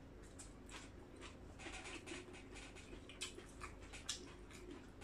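Faint, irregular soft clicks and rustles of fresh herbs and leafy greens being picked and handled in a bowl of salad.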